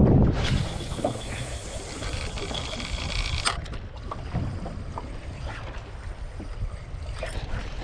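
Wind on the microphone and water noise aboard a small boat, as a topwater popper is cast: a sharp swish right at the start, then a hiss of line running off the reel for about three seconds, followed by scattered small clicks and knocks during the retrieve.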